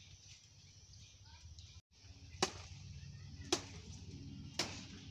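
Three sharp cracks about a second apart as a banana plant's leaves are broken and cut off, over a steady low outdoor rumble.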